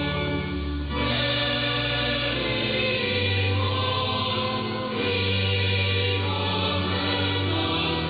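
Choir singing in long held notes, the chord changing about every two seconds, received over longwave AM radio so the sound is narrow and muffled, with nothing above about 4.5 kHz.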